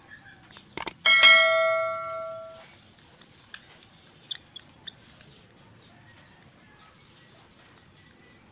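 A metal tool strikes the aluminium carburetor float bowl with a sharp clink that rings on in a bell-like tone and dies away over about a second and a half. A few light ticks follow as the tool works inside the bowl.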